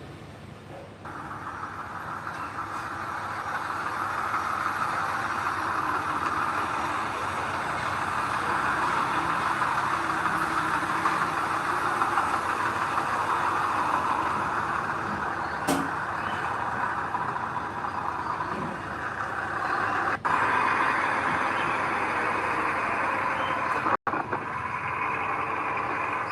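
Heavy earthmoving machinery running steadily: diesel engine noise of a bulldozer or dump truck at work. It starts abruptly about a second in and breaks off for an instant twice near the end.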